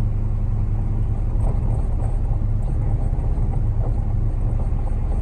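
Concrete mixer truck's diesel engine running steadily, a low, even drone.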